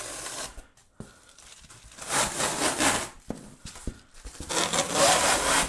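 Thin printed plastic film being peeled off an expanded polystyrene (EPS) foam insulation board, in three ripping pulls of about a second each, with a few small clicks between.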